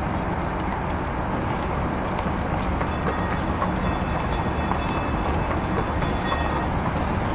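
Streetcar rolling along rails with a steady low rumble. Faint thin high tones come in about three seconds in.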